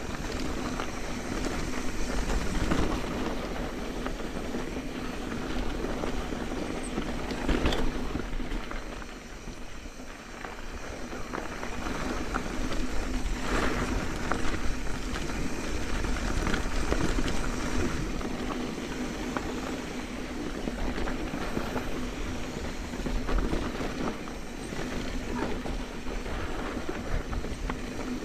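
Mountain bike riding a dirt trail: a steady rumble of tyres and a rattle of the bike over rough ground, with a few sharper knocks, the loudest about eight and thirteen seconds in.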